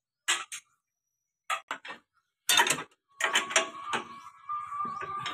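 Steel spanners clicking and clinking on a bolt on a tractor's frame as the bolt is worked loose. A few separate clicks come first, then about three seconds in a denser run of metal clatter with a faint ringing tone.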